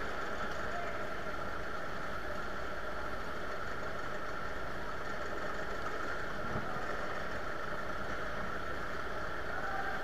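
Airport baggage tow tractor running steadily as it drives, a steady engine hum with a high steady whine over it. One light knock about six and a half seconds in.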